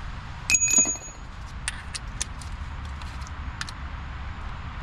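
Metal tools and parts clinking and clanking, with one ringing metallic clang about half a second in and a few lighter clicks after, over a steady low hum.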